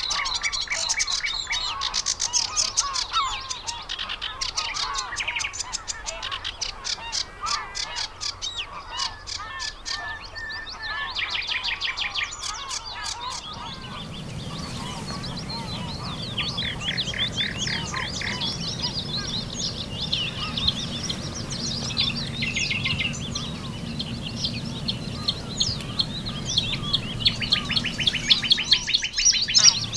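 Several songbirds singing over one another: fast chattering trills and short phrases of repeated notes overlap without a break. About halfway in, a low steady rumble joins underneath.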